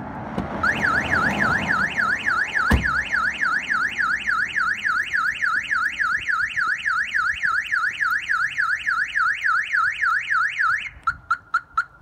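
Clifford 330 X Series car alarm siren sounding on a Fiat 595 Abarth: a loud, fast up-and-down warble of about three sweeps a second, cutting off near the end and followed by four short chirps. A car door shuts with a sharp thud about three seconds in.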